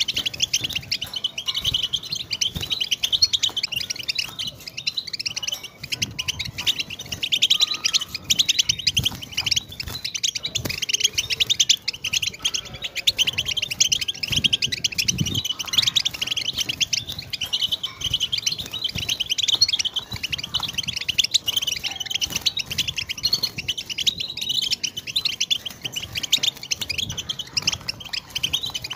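European goldfinch singing a continuous, rapid twittering song of quick, closely packed notes.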